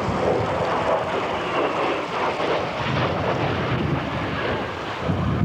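Propeller-driven light aircraft engine running steadily.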